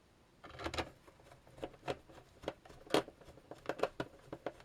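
Irregular light clicks and taps of a screwdriver and screws working on a plastic ZX Spectrum and Interface 1 case as the screws are driven in, with a small cluster about half a second in and scattered sharper clicks after.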